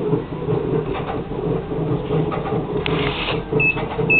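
A steady low mechanical hum. Near the end come two short, high electronic beeps about half a second apart.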